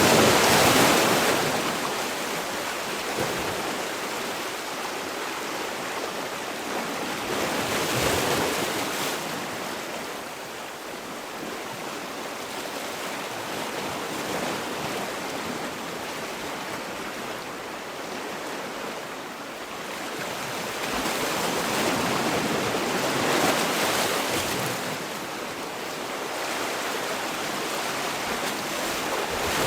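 Sea waves washing onto the shore in a continuous surf, swelling louder as waves break, near the start, around a third of the way in, and again past the middle, then easing back.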